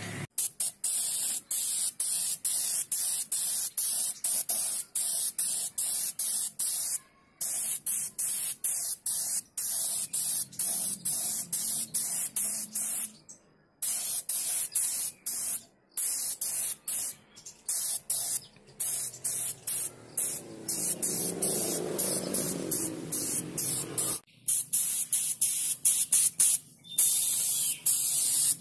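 Compressed-air spray gun spraying candy paint: a loud, high hiss that breaks off and starts again many times as the trigger is worked in short passes.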